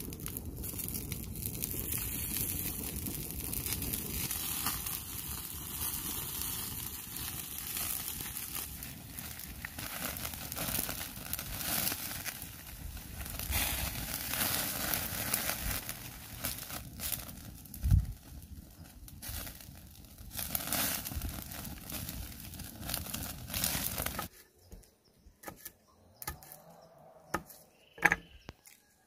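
Baby octopus sizzling on a hot flat stone over a wood fire, with the fire crackling, and one sharp thump about two-thirds of the way through. Near the end the sizzling cuts off suddenly, leaving a quiet stretch with a few sharp knocks of knife work on a wooden board.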